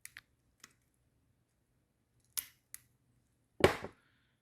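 A hand tool working on the metal pins of a smashed-open Nixie tube as they are removed: a few sharp clicks, then one louder crunch about three and a half seconds in.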